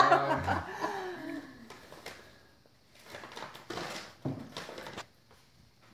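Folded paper being handled and opened, crinkling in a few short rustles, after a voice trails off at the start.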